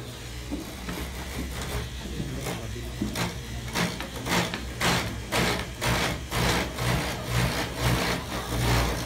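Wooden-clog copying lathe running with a steady motor hum; from about three seconds in its cutter bites into the wooden blank in loud, rhythmic rasping strokes about two a second as the carving goes on.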